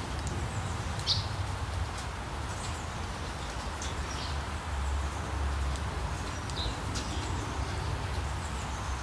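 Short high bird chirps every second or two over a steady hiss of rain falling in forest, with a low rumble underneath.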